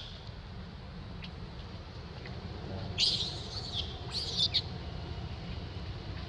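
Baby long-tailed macaque giving two shrill, high-pitched cries about three seconds in, the first nearly a second long: an infant crying to nurse. A steady low rumble runs underneath.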